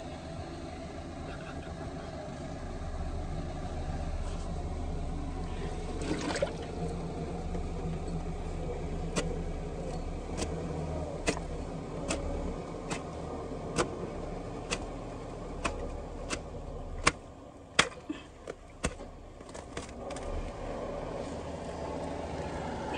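Small hatchet chopping at a mass of tree roots blocking a sewer pipe, in sharp strikes about once a second through the middle of the clip, over a steady low hum.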